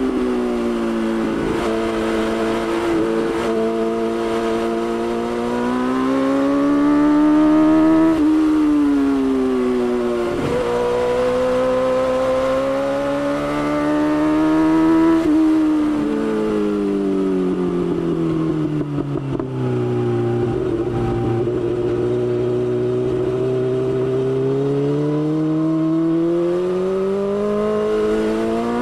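BMW S1000XR's inline-four engine on the move, its pitch rising and falling with the throttle. Several sudden jumps in pitch mark gear changes, and there are long slow falls while the bike slows.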